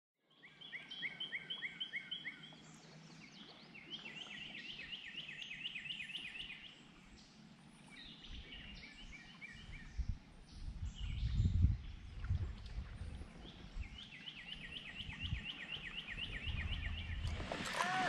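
A songbird sings runs of quick, evenly repeated chirping notes, four times with pauses between, over outdoor woodland ambience. A low rumble swells briefly about halfway through.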